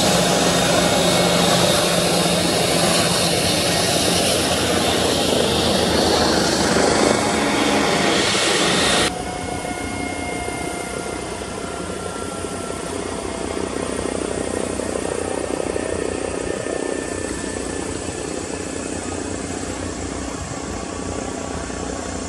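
Helicopter flying, a loud steady rotor and turbine noise. About nine seconds in it cuts abruptly to a quieter sound: a twin-turbine AgustaWestland AW169 approaching in a slow hover, its rotor running steadily with a faint turbine whine.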